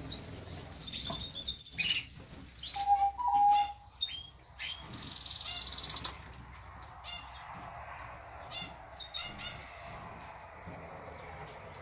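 Domestic canaries chirping and calling, with a low whistled note about three seconds in and a rapid high trill lasting over a second about five seconds in. A canary's wings flutter as it bathes in a metal water bowl.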